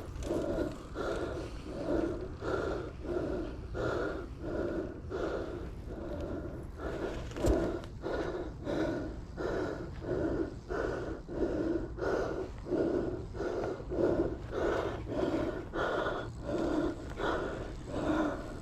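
A person panting hard and rhythmically, at about one and a half breaths a second, close to the microphone.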